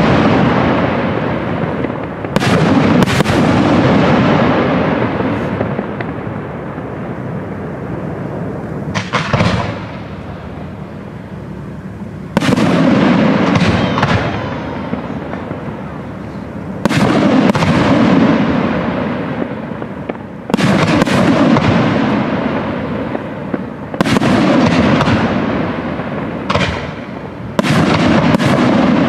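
Aerial firework shells bursting: a loud bang every few seconds, often two in quick succession, each followed by a long rumble that fades away before the next.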